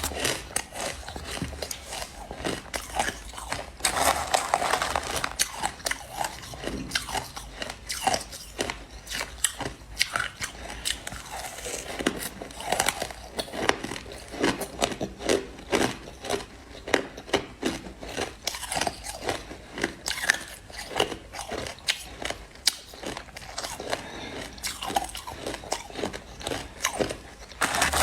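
Crushed ice being bitten and chewed: a steady run of sharp, irregular crunches, many to the second, with no pause.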